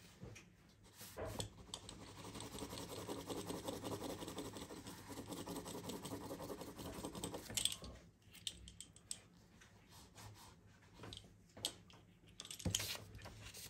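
Pencil scratching across paper in quick back-and-forth hatching strokes, dense for several seconds, then thinning out to scattered short strokes and taps.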